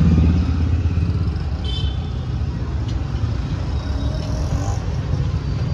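Street traffic noise: a steady low rumble of vehicle engines passing on the road, with a short high-pitched tone just under two seconds in.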